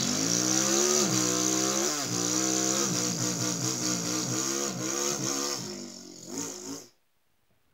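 A man imitating a race car with his voice: a buzzing engine note with a hiss over it, its pitch repeatedly climbing and dropping back, for about seven seconds before it stops abruptly.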